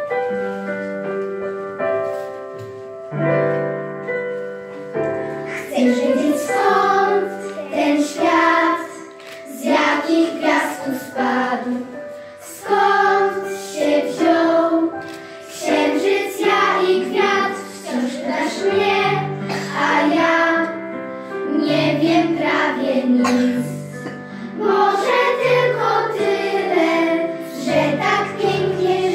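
A group of children singing a song in unison over an instrumental accompaniment with steady held chords.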